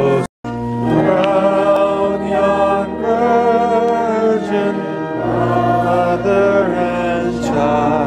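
Congregation singing a Christmas hymn in slow sustained notes with instrumental accompaniment. It breaks off abruptly for a moment just after the start, then resumes.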